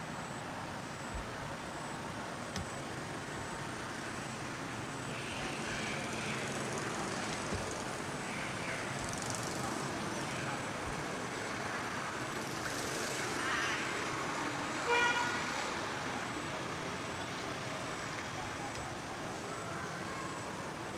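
Steady outdoor background noise, with one short, high-pitched call about fifteen seconds in.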